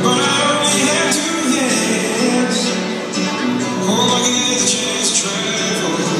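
Music played loudly over the sound system of a large hall.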